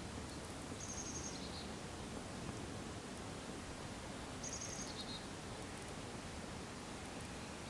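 Steady outdoor background hiss with a bird's short, high two-note call, the second note lower, heard twice about four seconds apart.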